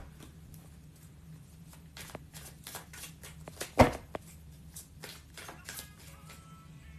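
Tarot cards being shuffled by hand: a run of quick soft card clicks and flicks, with one louder tap a little past the middle. Faint music comes in near the end.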